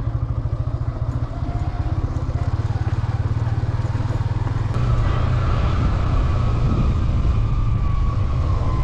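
Motorcycle engine running on a rough hill road, with a steady low pulsing note. About halfway through it gets louder, and a higher whine comes in that slowly drops in pitch.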